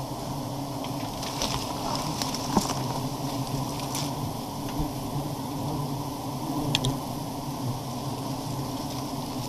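Swarm of giant honeybees (sialang bees) buzzing in a steady drone around their open wild comb as it is harvested, with a few light knocks and scrapes from the plastic bucket and branches.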